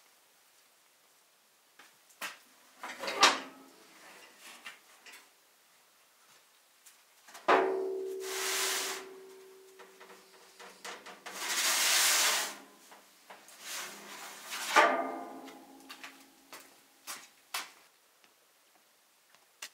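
Kitchen dishes and utensils being handled: a few light knocks, then two ringing clinks of a pot or bowl about seven seconds apart, with two longer rustling, hiss-like bursts between them.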